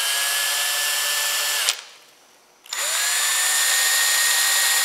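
Ryobi cordless drill spinning a right-angle drill attachment with no load: a steady whine that stops with a click about one and a half seconds in. After about a second of quiet it starts again, its pitch rising quickly and then holding steady.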